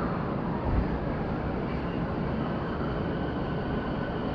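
A 209 series electric commuter train pulling away from the platform, heard from inside the carriage. There is a steady low rumble of the running train, with a faint, steady high whine over it.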